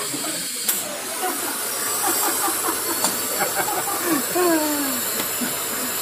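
Steady hiss of steam escaping from a leaking brass safety valve on an autoclave's steam line: the valve no longer seals and needs replacing.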